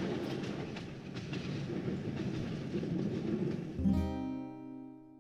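Rumbling train noise. About four seconds in it gives way to a single struck acoustic guitar chord that rings and fades out.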